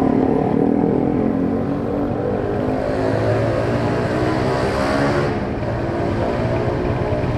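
Motorcycle engines idling at a stop, a steady running hum. About three to five seconds in, a louder, brighter rush of engine noise rises and fades.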